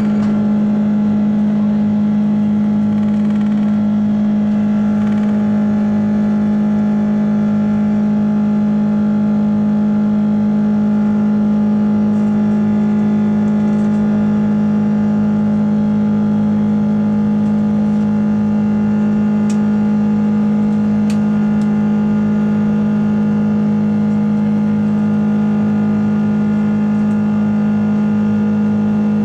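The Rolls-Royce Trent 700 turbofan engines of an Airbus A330-300 at takeoff thrust, heard inside the cabin over the wing through the end of the takeoff roll and into the initial climb. It is a loud, steady drone with a strong low hum and a set of steady tones above it.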